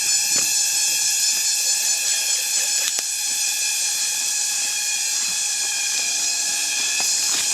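Loud, steady chorus of insects with a dense high hiss, a few faint short tones and clicks over it.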